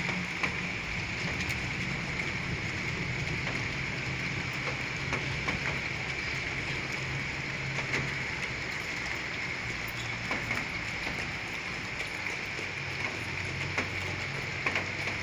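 Heavy rain falling steadily, a constant hiss with scattered sharp ticks of drops striking nearby surfaces.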